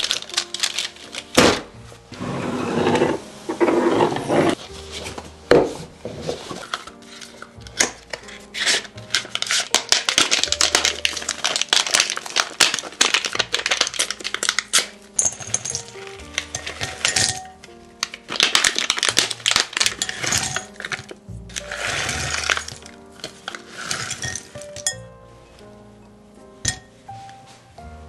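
Bars of dark chocolate snapped into pieces, with a run of sharp cracks and clinks as the chunks drop into a glass mixing bowl, over background music.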